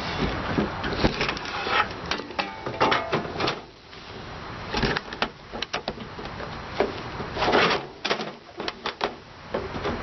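Irregular clicks and knocks mixed with short noisy bursts, the clatter of hand work on equipment.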